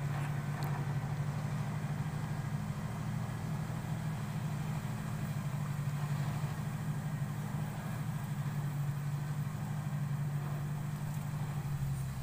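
Diesel engine of a loaded logging truck running steadily.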